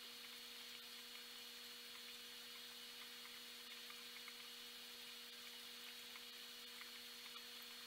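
Near silence: the faint steady hum of running aquarium equipment, with a few tiny scattered ticks.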